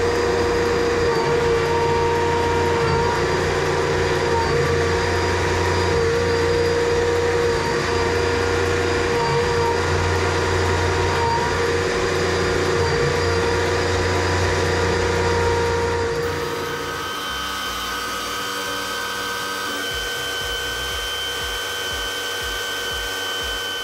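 Steady motor drone from drain-cleaning machinery while a flexible cable is worked down a sewer pipe toward the septic tank. About 16 seconds in the drone gets a little quieter and jumps about three times higher in pitch, because the footage is sped up.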